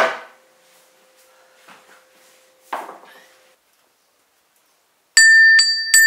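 Two sharp knocks, one at the start and another nearly three seconds in, as tins are handled on a plastic-covered board. Near the end a wall-mounted cast-iron bell is rung by its pull, struck several times in quick succession and ringing on loudly.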